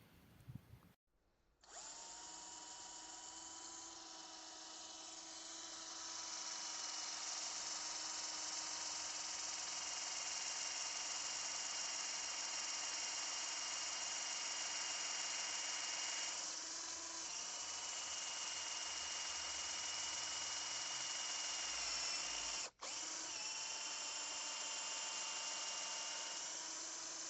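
KUZUPRO 21V cordless drill/driver motor running steadily with a high whine, broken off for an instant about 23 seconds in.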